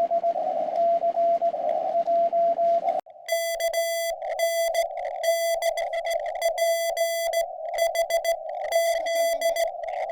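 Morse code (CW) tone at about 650 Hz from a QRP Labs CW transceiver: for about three seconds a received station keys its dits and dahs through a hiss of band noise. Then the hiss drops out and a cleaner, buzzier keyed tone follows in short runs, the radio's sidetone while the operator sends.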